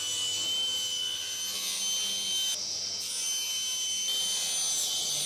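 Table saw running and ripping a thin strip of hardwood: a steady high-pitched blade whine over the noise of the cut, its tone shifting briefly about halfway through.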